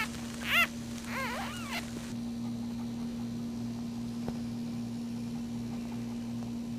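Newborn puppy squealing several times in quick succession in the first two seconds, short high arching squeaks. After that only a steady low hum is heard.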